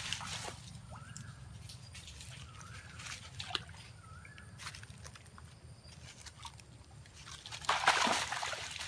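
Water sloshing and splashing, with a louder splash about eight seconds in.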